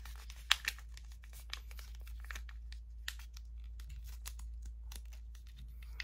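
Thin plastic packaging crinkling and tearing as fingers work it open, in irregular crackles with one sharper snap about half a second in.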